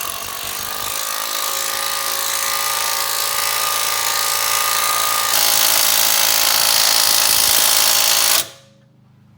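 Impact wrench running the torsion key adjuster bolt on a Hummer, getting louder and harsher about five seconds in, then stopping suddenly a little after eight seconds.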